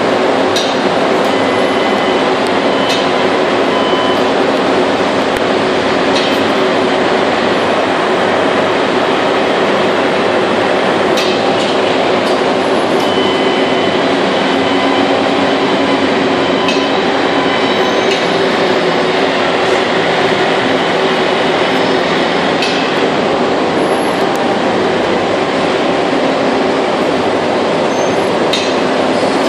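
Steady loud machine noise of an ingot-casting line: the melting furnace and a chain conveyor of ingot molds running. A scattering of sharp metal clinks sounds through it, from the ladle and skimmer striking the molds.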